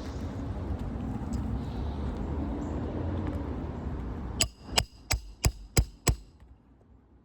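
Steady low rumble, then a hammer striking on a 3-tab asphalt shingle roof: six sharp, quick strikes about a third of a second apart, a little past halfway through.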